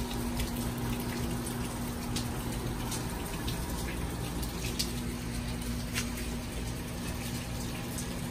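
Steady rain falling, with scattered sharp drips and taps from drops landing close by.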